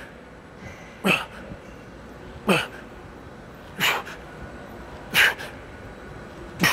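A man's sharp, forceful exhaled grunt on each pull of a heavy seated cable row, five of them in a steady rhythm about every one and a half seconds.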